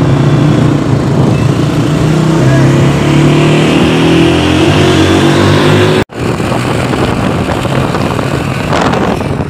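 Motorcycle engine running under way, its pitch climbing slowly as the bike accelerates. About six seconds in the sound cuts off abruptly and resumes as rougher road and wind noise with the engine fainter.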